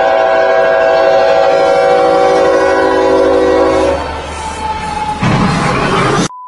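Norfolk Southern locomotive's multi-chime air horn blaring in one long, loud blast that stops about four seconds in. About a second later comes a loud crash of impact as the train strikes a vehicle at the crossing; the sound cuts off abruptly just before the end.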